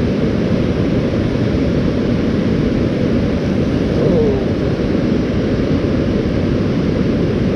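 Steady rushing of creek water flowing over riffles, a constant even rush with no breaks.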